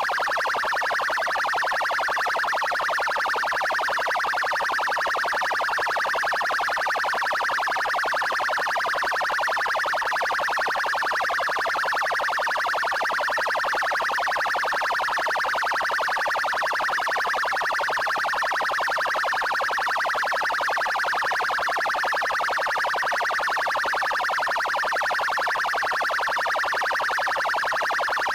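Brazilian police car's electronic siren sounding its 'trail' tone: a steady, rapidly pulsing tone that holds at one pitch and level throughout.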